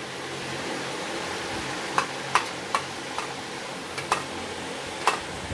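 Handling of wet poha dough: about half a dozen sharp, light clicks and pats, bunched in the second half, as it is pressed flat on the palm. A steady hiss runs underneath.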